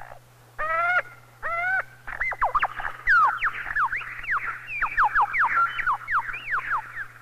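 Lyrebird singing: two short ringing notes, then a rapid run of loud whistled notes, each sweeping down in pitch.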